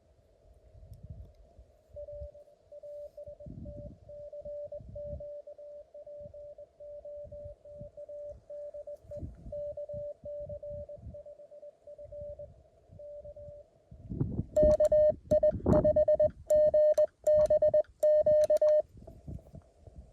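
Morse code tones at about 600 Hz from a Mountain Topper CW transceiver: a faint string of dots and dashes heard through band hiss, then, about two-thirds of the way through, a much louder, sharper burst of Morse lasting about four seconds. Low rumbles come and go underneath.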